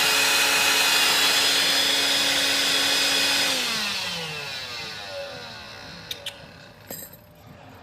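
Vacuum cleaner running steadily with a loud whine, then switched off about three and a half seconds in, its motor falling in pitch and fading as it spins down. A few faint clicks near the end.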